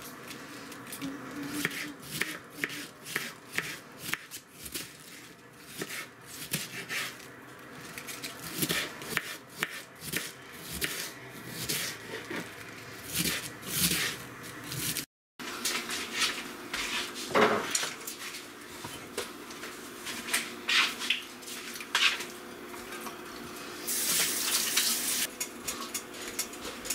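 Kitchen knife shredding white cabbage on a wooden cutting board: a long run of irregular crisp cuts and taps of the blade on the board. There is a brief hiss near the end.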